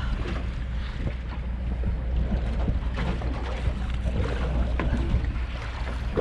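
Steady wind rumble on the microphone, with water lapping against the hull of a small fishing boat and a few faint knocks.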